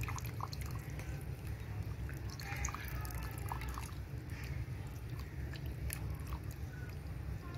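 Silicone spatula stirring thickening milk kheer in a pan, with soft scraping and scattered small clicks and pops. A steady low hum runs underneath.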